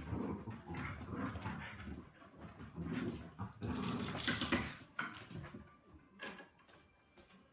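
Dogs play-fighting, a Westie, a Labradoodle and a fox red Labrador puppy: dog vocal sounds mixed with scuffling, busiest in the first five seconds, then dying away as they part.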